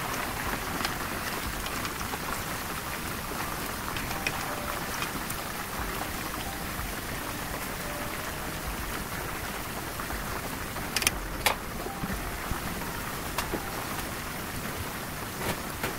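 Flour-and-starch-coated chicken pieces deep-frying in hot oil: a steady, dense sizzling crackle, with a couple of sharper clicks about eleven seconds in.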